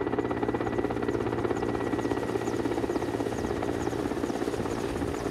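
Mi-8-type helicopter hovering low over a helipad: the main rotor beats fast and evenly over the engine noise, with a thin steady high tone, and the level holds steady throughout.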